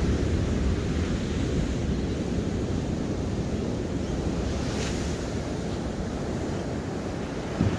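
Ocean waves washing in as a steady rush, with wind buffeting the microphone as a low rumble.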